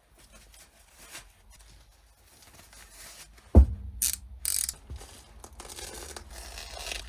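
Rustling of gloves being pulled on, then a sharp thump a little past halfway. Right after come short clicking bursts of a snap-off utility knife's blade being slid out, and then a rasping scrape as the blade starts cutting into a woven polypropylene sack.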